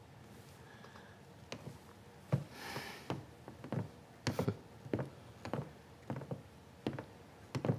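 Footsteps on a wooden floor, a dozen or so sharp steps at a walking pace starting about a second and a half in, with a brief rustle around three seconds in.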